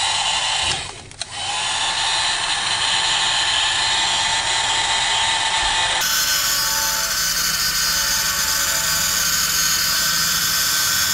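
Heat gun running steadily on its low setting, its fan blowing with a steady whine; the sound dips out briefly about a second in and comes straight back.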